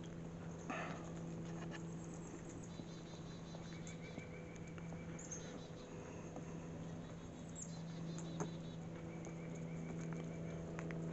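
Small birds giving short, high chirps and quick trills now and then, over a steady low hum and faint background hiss.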